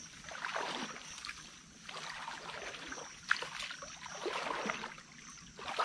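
Rustling and crunching through dry leaves and bamboo undergrowth in uneven bursts, with one sharp snap a little over three seconds in.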